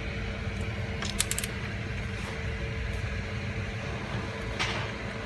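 Steady mechanical hum with a faint constant tone, with a quick run of small clicks about a second in and a brief soft swish near the end.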